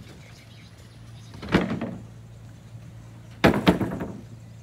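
Sharp knocks: one about a second and a half in, then a quick run of three near the end, over a low steady hum.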